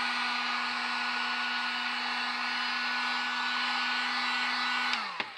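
Heat gun running steadily, its fan blowing with a low hum and a higher whine as it heats EVA foam. Near the end it is switched off and the motor's pitch falls as it spins down.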